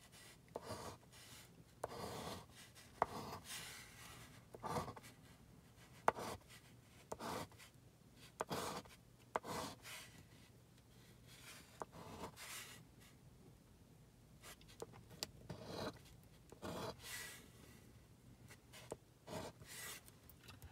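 A casino chip scratching the coating off a scratch-off lottery ticket in short, irregular strokes, with a few sharp clicks.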